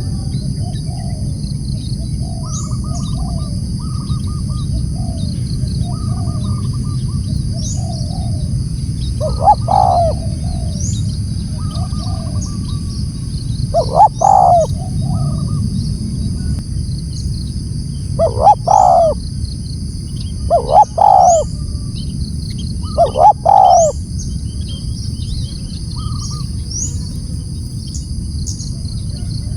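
Spotted dove cooing, with five loud calls in the middle stretch among softer, regularly repeated bird notes. Underneath run a steady low hum and a steady high buzz.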